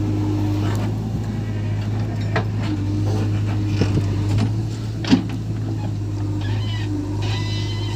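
Heavy diesel engine running with a steady low drone, with scattered knocks and one sharp knock about five seconds in.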